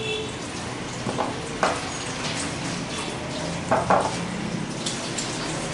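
Rubber spatula scraping thick whipped cream off a plate into a glass bowl and stirring it in, with a few soft knocks of the spatula against plate and bowl over a steady hiss.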